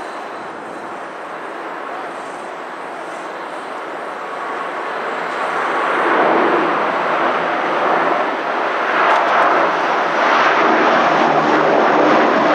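Antonov An-12's four Ivchenko AI-20 turboprop engines running at takeoff power as the aircraft rolls and climbs away, a dense, even engine noise that grows steadily louder from about four seconds in.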